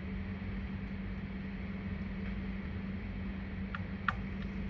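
Steady low hum of background room noise with a constant faint tone, like an appliance or air handling running, and two faint clicks about four seconds in.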